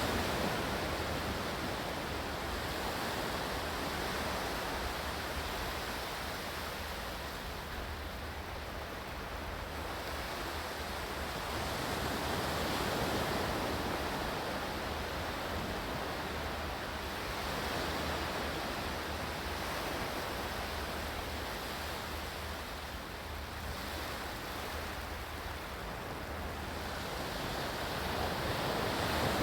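Steady rush of water, a dense even hiss that slowly swells and eases every several seconds, like surf washing in.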